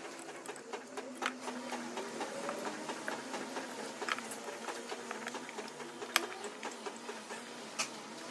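Small metal clicks, taps and scrapes of hand tools and alternator parts being handled on a workbench, with a few sharper ticks scattered through.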